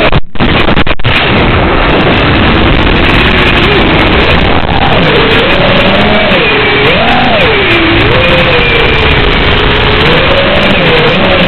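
FPV freestyle quadcopter's motors whining through heavy radio static, their pitch swinging up and down as the throttle changes. The sound drops out twice, briefly, in the first second.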